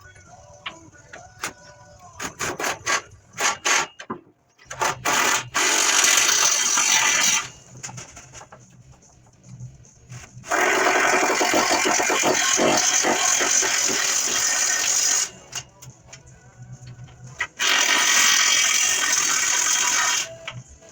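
A power tool running in three loud bursts of a few seconds each, after a run of short clicks and rattles.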